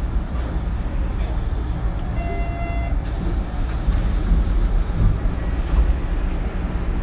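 Onboard sound of a Hanshin 9000-series electric train: a steady low rumble, with a short steady tone about two seconds in.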